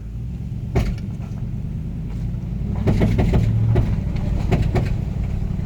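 2003 Toyota 4Runner V8 driving off slowly under acceleration, the engine pulling harder from about three seconds in, over a series of sharp, irregular pops from the front of the driveline. This low-speed popping under load is, in the owner's view, coming from the transfer case or front axle of the full-time four-wheel-drive system.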